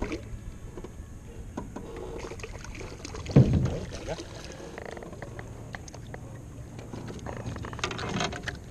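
Small waves slapping against an aluminium boat hull while a fish is reeled in, with light clicks throughout and one louder thump about three and a half seconds in.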